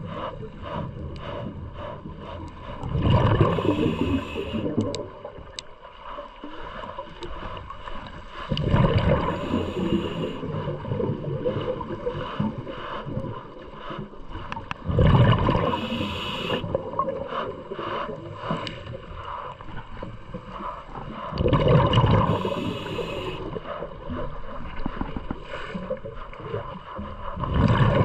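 Scuba diver breathing through a regulator underwater: five breaths about six seconds apart, each a gurgling rush of exhaled bubbles with a short hiss.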